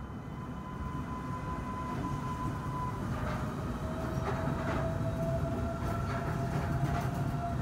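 Kanazawa Seaside Line rubber-tyred automated train rolling slowly onto a switch, its rumble growing louder. A steady whine steps down in pitch a few seconds in, and a few knocks come as the lead car crosses the switch.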